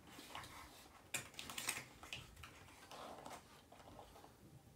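Faint cardboard rustling and scattered light clicks as a perfume bottle is slid out of its snug box.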